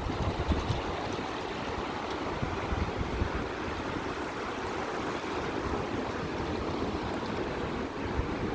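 Steady rush of flowing river water, with wind buffeting the microphone in the first second.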